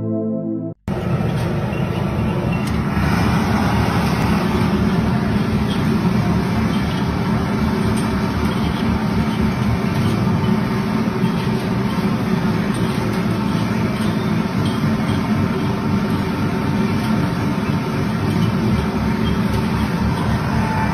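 A short intro jingle cuts off under a second in. It gives way to the steady, dense din of a busy street-side tea stall, with traffic noise.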